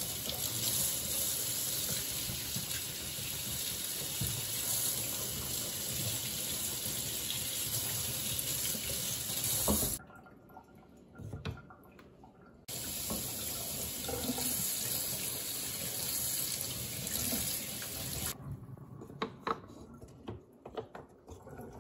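Kitchen sink tap running as wooden spoons are rinsed under warm water. The water breaks off for a couple of seconds about ten seconds in, then stops near the end. Light clicks and knocks follow as the wooden spoons are set on a wooden dish rack.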